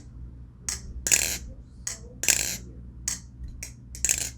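Irregular sharp clicks and clacks, about eight in four seconds, from a balisong butterfly knife and its weighted rubbery handle caps being handled.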